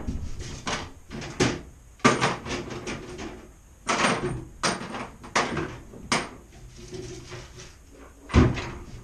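Hands working on an engine wiring harness: an irregular run of sharp clicks and knocks with rustling between them, the loudest knocks about two seconds in and near the end.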